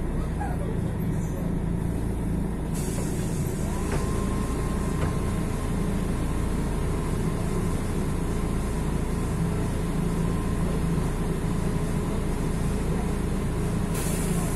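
Mercedes-Benz OM 457 LA six-cylinder diesel of an O-500MDA articulated bus running steadily. A hiss sets in sharply about three seconds in and continues. A brief, brighter hiss comes near the end.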